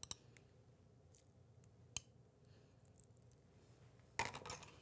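Near silence broken by a few soft clicks of a spoon and small ceramic bowls, one right at the start and one about two seconds in. Near the end comes a brief run of light clinks and scrapes as the spoon works in a bowl.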